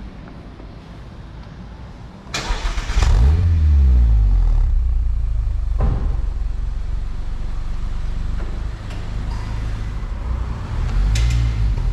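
Mazda MX5's engine started through a newly fitted Friedrich Motorsport Group A cat-back exhaust: a short crank about two seconds in, then it catches with a rev flare and settles into a loud, deep idle, with a short blip of throttle near the end.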